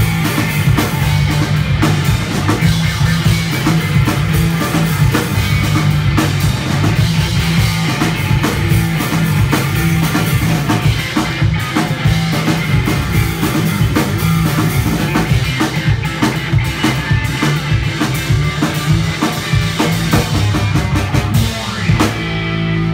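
A punk rock band playing loud and instrumental, with distorted electric guitar, bass guitar and a drum kit. Near the end the drums stop and a held guitar and bass chord rings on.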